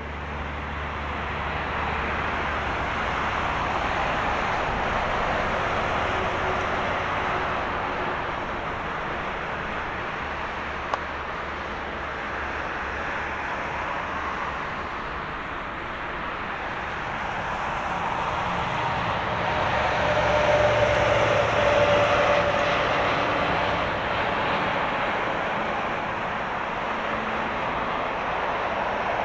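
Boeing 777-300ER's GE90 turbofan engines at approach power as the airliner comes in to land: a steady jet hiss and roar that grows louder as the plane nears. A humming engine tone is loudest about two-thirds of the way through.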